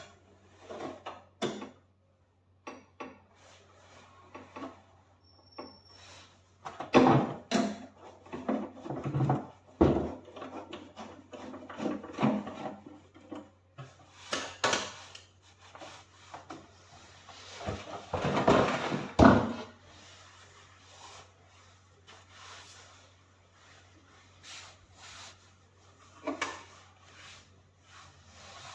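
Hands fitting a part back into a microwave oven: irregular knocks, clatter and scraping, with louder clusters of knocks about a third of the way in and around two-thirds of the way through.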